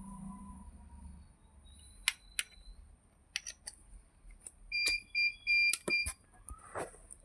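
Electric chiropractic adjusting gun: several sharp clicks, then a quick run of short electronic beeps from its controls a little past the middle, followed by another click or two.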